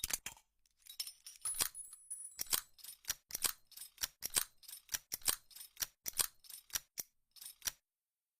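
Revolver mechanism sound effect: a run of sharp metallic clicks and clinks, two or three a second and irregular, as of the cylinder being worked or reloaded. They stop near the end.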